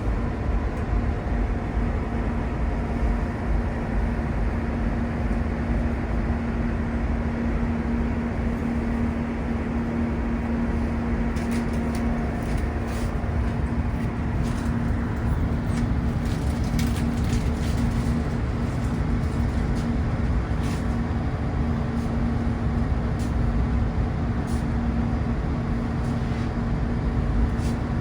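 Steady rumble and hum of a British Rail Class 165 Networker Turbo diesel multiple unit, its inline-six turbo-diesel engine and running gear heard from inside the carriage, with faint scattered clicks through the middle.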